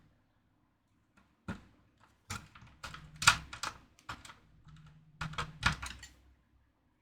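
Irregular clicks and knocks of screws and enclosure parts being handled during assembly, the loudest a little after three seconds in.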